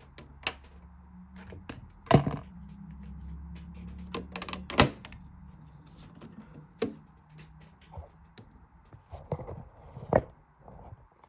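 Bosch Logixx 8 toy washing machine giving scattered sharp knocks and clicks, the loudest about two seconds and five seconds in. A low hum from its small motor runs for a few seconds from about one and a half seconds in.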